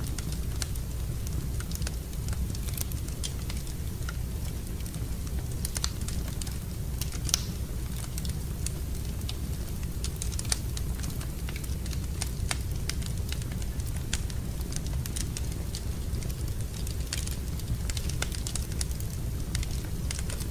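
Wood fire burning in a fireplace, crackling with scattered sharp pops over a steady low rumble; a few pops stand out louder, one about seven seconds in and another around ten seconds.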